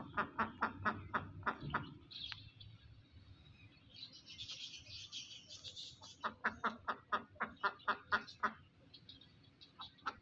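Hen clucking in quick runs of short notes, about four a second: one run at the start and another from about six seconds in.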